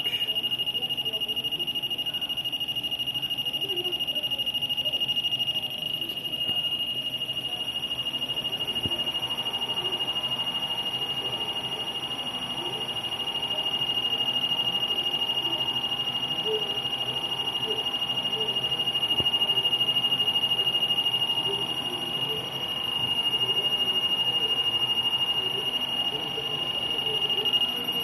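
MHF300L machine running with its shaft turning, giving off one steady high-pitched whine at a fixed pitch. A fainter, lower steady tone joins about nine seconds in.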